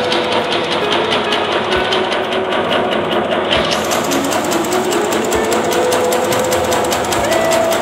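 Bakso meatball-forming machine running with a rapid, even mechanical clatter and a wavering motor whine. A hiss of churning water in the receiving tank joins in about four seconds in.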